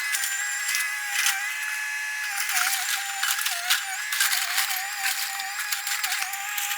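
Sped-up sound of an excavator demolishing a house: the engine's drone raised to a high, wavering tone that dips briefly several times, over dense clatter and cracking of breaking debris.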